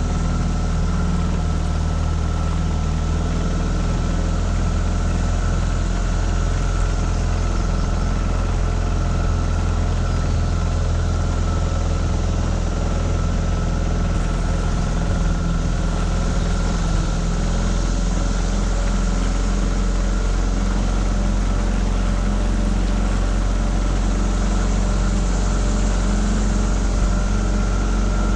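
Tohatsu 9.8 hp four-stroke outboard motor running steadily, driving a small V-bottom boat under way.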